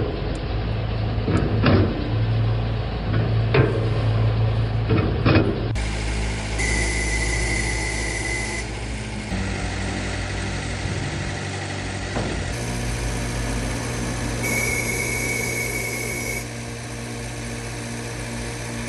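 Self-loading concrete mixer truck's engine running steadily while its hydraulics tip the loading bucket and lift the drum, with a few sharp clicks and knocks in the first six seconds. The sound changes abruptly a few times as the footage is cut.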